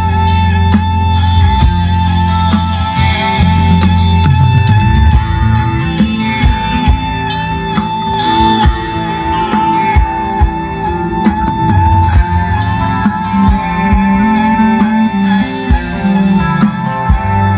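Loud rock music with electric guitar, bass and drum hits, played over a large outdoor concert PA system.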